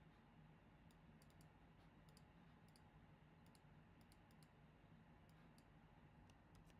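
Near silence with faint, scattered computer clicks, about a dozen, several coming in quick pairs, over a low steady hum.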